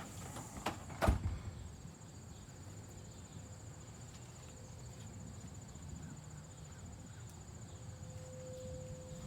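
Steady high-pitched chirring of insects, likely crickets. A sharp knock comes about a second in.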